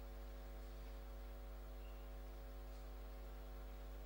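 Steady electrical mains hum with a ladder of even overtones, unchanging throughout, and no other sound.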